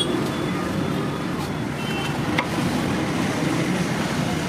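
Steady low rumble of background noise, with faint voices mixed in.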